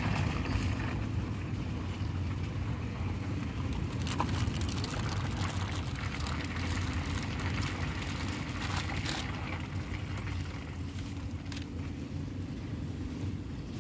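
Car driving, heard from inside the cabin: a steady low engine and road rumble with tyre and wind hiss, the hiss swelling for a few seconds in the middle.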